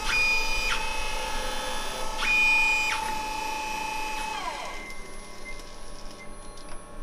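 Dyna Myte DM 4400 CNC milling machine running through its cycle: a steady whine with a higher whine that cuts in and out in short spells. About four and a half seconds in the whine winds down in pitch, leaving a faint hum.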